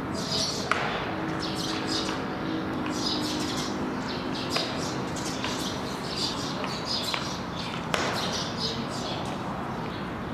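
Small birds chirping throughout, with the sharp pop of a pitched baseball into a catcher's mitt about a second in and another sharp knock near the end.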